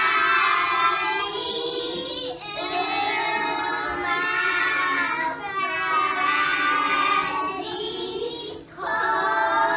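Children's voices singing in phrases of about three seconds, each separated by a short break.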